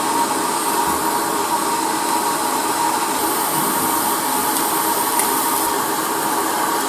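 Hot-air rework station blowing steadily onto a phone's glass back to soften its adhesive: an even rush of air with a thin steady whine.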